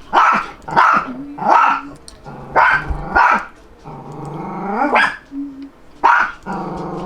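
A dog barking repeatedly, short loud barks coming about every half second, with one longer call rising in pitch about four seconds in.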